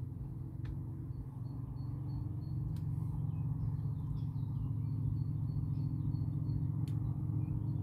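A passing boat's engine drones low and steady, growing a little louder after about two seconds. A small bird chirps short high notes over it, and there are three faint clicks.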